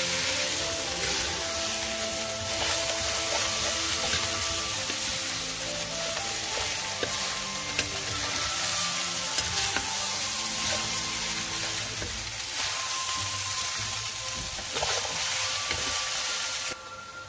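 Fried rice sizzling in a hot metal pan while a wooden spatula stirs and turns it, with a few sharp scrapes and knocks of the spatula on the pan. The sizzling drops away just before the end.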